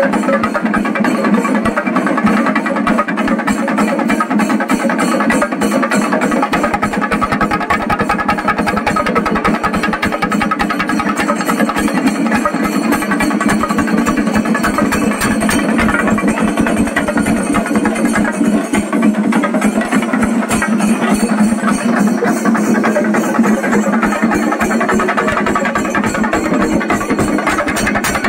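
Singarimelam ensemble of chenda drums beaten fast with sticks: loud, dense, unbroken drumming.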